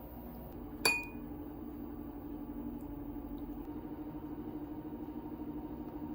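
A single sharp clink with a short bright ring, about a second in, as of a hard glass or metal object being struck. It sounds over a steady low hum.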